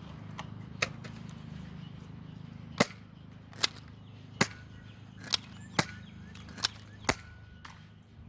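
Nerf foam-dart blasters being fired, about eight sharp spring-loaded pops spaced irregularly over several seconds.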